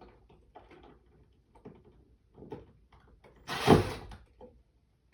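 Several light knocks and clicks of work on hardware, then one louder, noisy scraping burst lasting about half a second, around three and a half seconds in.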